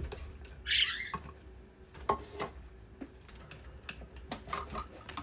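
A pet parrot gives a short squawk about a second in, followed by scattered light clicks and taps.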